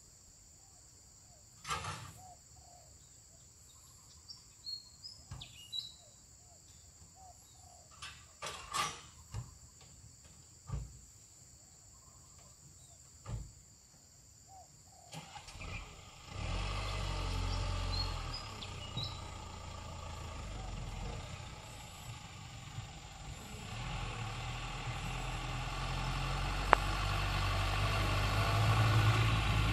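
Small diesel truck loaded with oil palm fruit bunches driving slowly toward the microphone. Its engine comes in about halfway through and grows steadily louder as it nears. Before that there are only a few clicks and short bird chirps.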